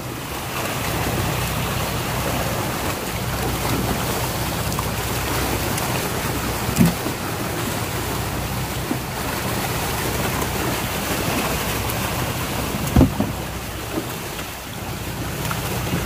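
Water splashing and churning as a mass of fish thrashes at the surface of a hauled-up net, over the steady low hum of a boat engine. Two sharp knocks stand out, about seven and thirteen seconds in.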